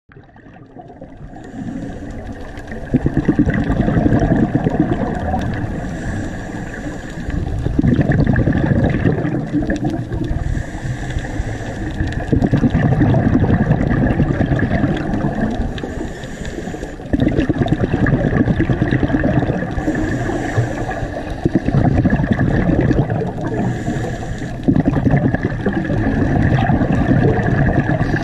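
Scuba regulator breathing underwater: a short high hiss on each inhale, then a long bubbling rush of exhaled air, repeating about every four to five seconds.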